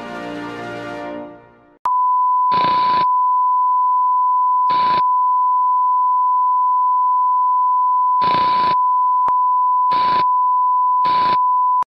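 The last orchestral chord of the national anthem fades out, then a steady high-pitched sign-off test tone starts. This is the off-air tone of a TV station going dark. Five short bursts of static-like hiss break over the tone, which cuts off abruptly at the end.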